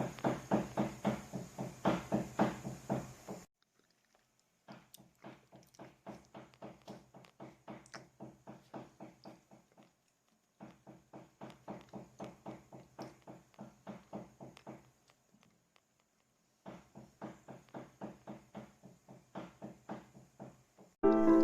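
A cleaver chopping meat filling on a wooden chopping board: a steady run of knocks about three a second, each with a dull ringing thud. The chopping is loudest for the first few seconds, then returns much quieter in three spells with short gaps between them.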